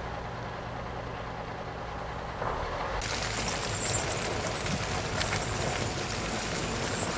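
Snow-removal vehicle engine running with a steady low hum. About three seconds in, the sound cuts to a louder, hissier mix of engine and road noise as a snowplow with its lights on approaches on a snow-covered road.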